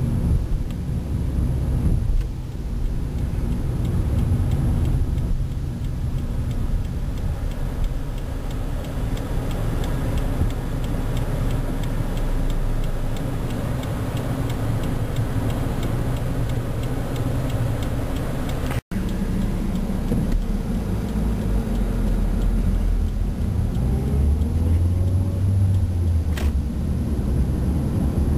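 A car engine and tyre noise running steadily, heard from inside the cabin of a moving car; the sound cuts out for an instant about two-thirds of the way through.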